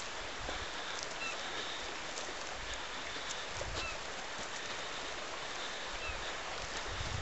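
Steady hiss of wind outdoors, with low gusts buffeting the microphone now and then. Three faint, short bird chirps come through, spaced a couple of seconds apart.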